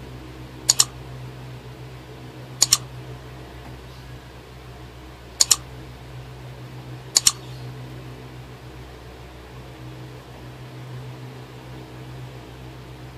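Computer-mouse click sound effect, four quick double clicks about two seconds apart, over a steady low hum.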